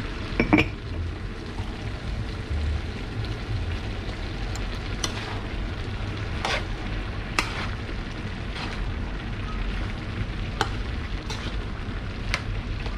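Bopis sizzling in a large metal pan on the stove, stirred with a metal ladle that clinks sharply against the pan about eight times.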